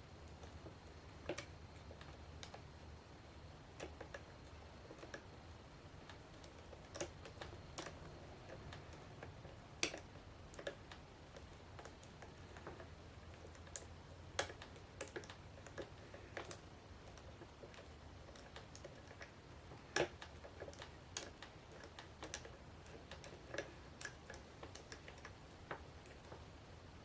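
Lock pick and tension wrench working in an American 5200 padlock: light, irregular clicks and ticks as the hook lifts and sets pins, with a few sharper clicks about ten and twenty seconds in.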